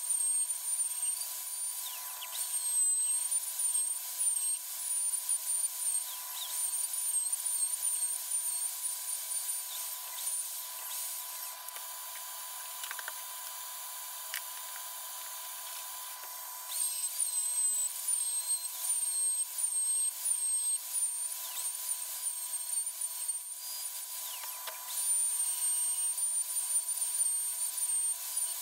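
Electric plunge router running and cutting into a wooden board, its high motor whine wavering as it is pushed through the cut. The whine stops for a few seconds about halfway through, leaving a steady lower hum, then starts again and cuts on.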